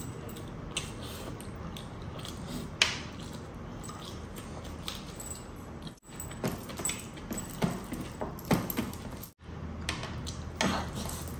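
Close-up eating sounds of rice and chicken eaten by hand: fingers scooping from a plate, wet chewing and lip smacks. Metal bracelets and rings clink with each hand movement. The sound cuts out briefly twice.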